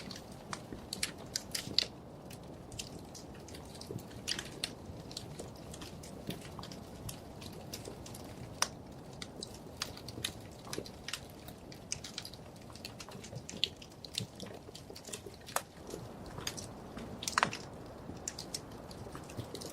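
Wood fire burning in a fireplace: a steady low rumble of the flames with irregular sharp crackles and pops, a few louder snaps among them.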